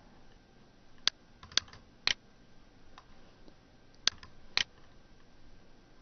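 Computer mouse button clicking: five sharp single clicks in two groups, each about half a second apart, as the cursor works an on-screen dialog.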